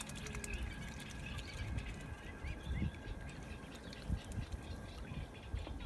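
Faint bird chirps over a low rumbling noise.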